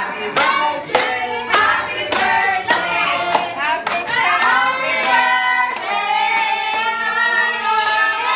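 A group of people singing a birthday song together, clapping along in time about twice a second.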